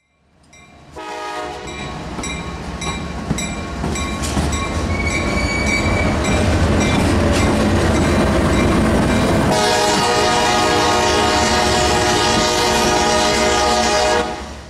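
CSX diesel freight locomotive passing close by, its engine rumbling while the air horn sounds, the horn becoming louder and fuller about nine and a half seconds in; wheels click over the rails in the first few seconds. The sound fades out sharply at the end.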